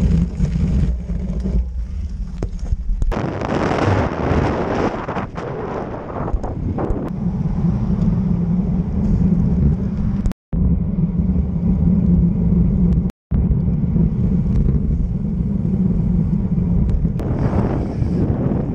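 Wind buffeting a bike-mounted camera's microphone, with tyre and road noise from a road bicycle riding along, a steady low rumble that swells for a few seconds early in the stretch. The sound cuts out briefly twice.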